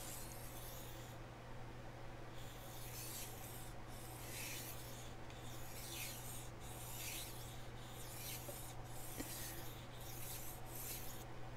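Chef knife blade scraping back and forth across a Chosera waterstone in steady sharpening strokes, about one a second, after a short pause near the start while the knife is turned over.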